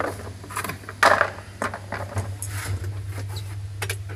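Irregular knocks and scrapes from a gloved hand working inside a top-load washing machine's tub around the hub, the loudest knock about a second in, with a steady low hum underneath.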